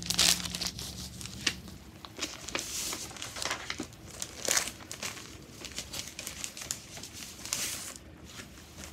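Plastic and paper crinkling as a cross-stitch kit and its packaging are handled, in irregular rustles and crackles.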